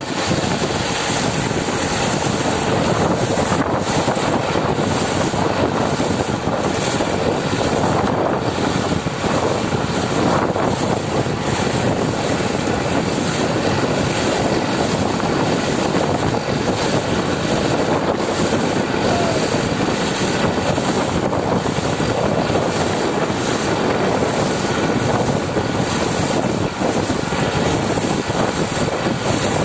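Borewell drilling rig and its air compressor running: a loud, steady rushing noise with no pauses.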